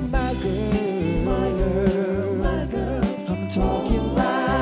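Motown-style soul music with a band: a sung melody over bass and drums.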